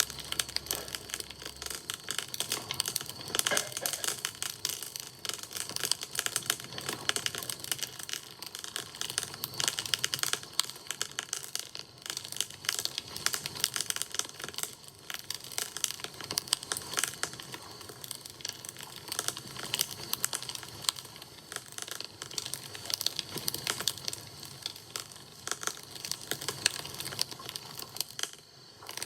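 Campfire crackling: a dense, steady stream of sharp pops and snaps.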